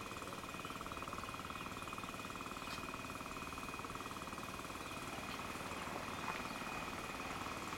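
Ariens 724 two-stage snowblower's engine running steadily as it is pushed through deep snow.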